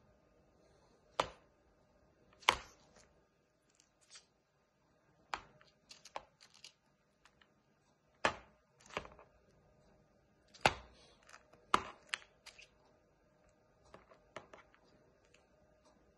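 A galah (rose-breasted cockatoo) knocking and tapping on the hard plastic lid of a closed laptop: irregular sharp knocks, some single and some in quick runs of two or three, about a dozen in all.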